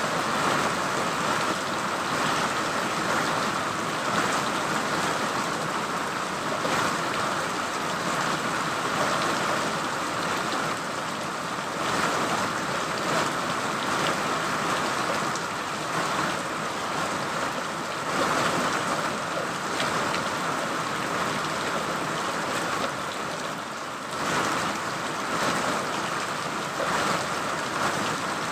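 Steady heavy rain falling, a dense even hiss with scattered louder drop ticks and small swells in intensity.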